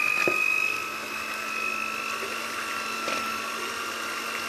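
Moulinex electric hand mixer running steadily, its twin beaters whisking eggs and sugar in a plastic bowl, with a steady high motor whine.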